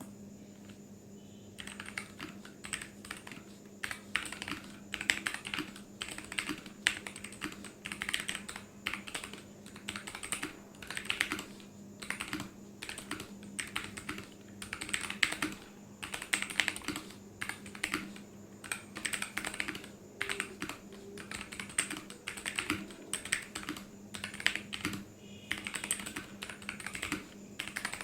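Typing on a Capturer KT87 mechanical keyboard with lubed Kailh Box Brown tactile switches, its case modded with cotton fill, tape and PE foam. The keystrokes come in quick, irregular runs, starting about a second and a half in.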